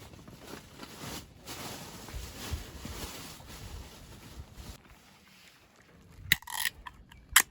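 Rustling and handling noise for the first few seconds, then two sharp clicks or knocks near the end.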